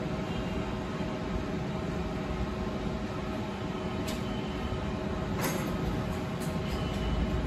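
Steady background hum and noise with a few faint steady tones, broken by two light clicks about four and five and a half seconds in.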